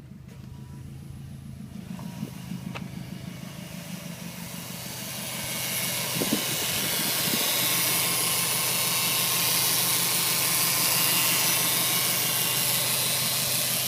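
Subaru WRX STI idling while a hiss from its air-conditioning system swells up over a few seconds and then holds loud and steady, the noise the owner takes for a broken AC. A click comes a few seconds in.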